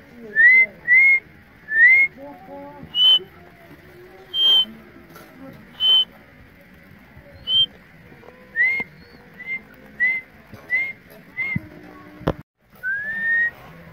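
A series of about fifteen short, rising whistled chirps at irregular intervals, most at one pitch with a few higher ones, and one longer rising whistle near the end. A sharp click comes just before it.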